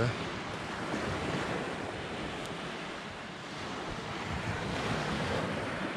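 Sea surf washing steadily on a pebble beach, with wind buffeting the microphone.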